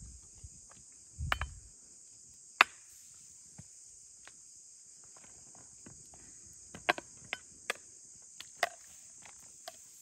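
Scattered sharp clinks and knocks of a spoon against a metal pan and an enamel colander as whole eggplants are lifted into a pan of water, the loudest about two and a half seconds in and a cluster of them in the second half. Under them, a steady high chirring of insects.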